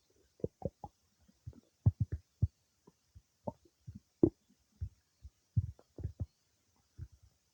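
Human stomach and intestines gurgling while digesting food: an irregular run of short, low gurgles and pops, a few a second.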